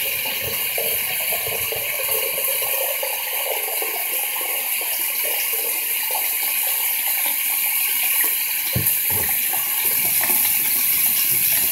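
Water running steadily from a bathtub tap, filling a bucket. A dull bump about nine seconds in.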